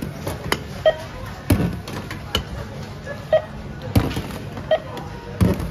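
Glass jars and groceries set down one after another on a stainless-steel supermarket checkout counter, a sharp knock about once a second, with short beeps from a checkout scanner between them.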